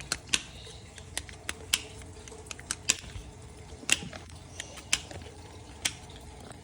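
Plastic colour puzzle toy being scrambled by hand: a run of irregular, sharp plastic clicks as its pieces are moved.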